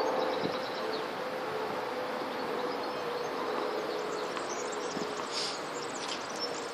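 Open-air background noise at a clay tennis court, with a steady faint buzzing hum running through it and a couple of faint taps, one about half a second in and one about five seconds in.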